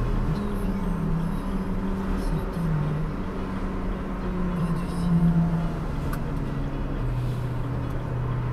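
Engine and road noise inside a moving truck's cab: a steady drone whose pitch shifts up and down a few times, growing louder about five seconds in.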